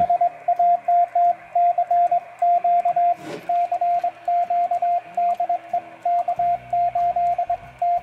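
CW sidetone from a Xiegu X5105 transceiver: a single steady beep keyed on and off in short and long Morse elements, dits and dahs, as the N6ARA TinyPaddle key is worked.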